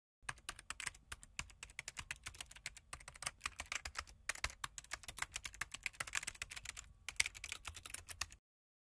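Typing sound effect: rapid keyboard keystroke clicks in runs broken by a few short pauses, stopping abruptly near the end.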